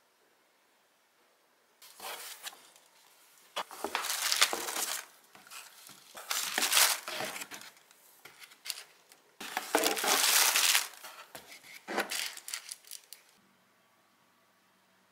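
Bubble wrap and plastic packaging crinkling and rustling in irregular bursts as things are handled in a cardboard box, stopping near the end.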